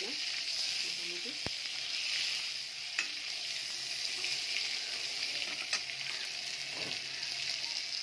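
Eggs frying in hot oil in a pan: a steady sizzle, with three sharp clicks spread through it.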